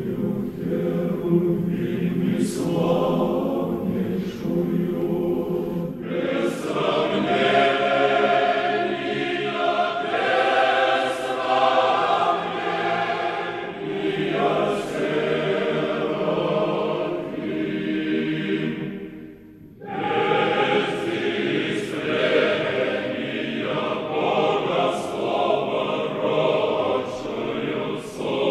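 Choir singing Russian Orthodox church music unaccompanied, in slow held chords, with a brief break about two-thirds of the way through before the singing resumes.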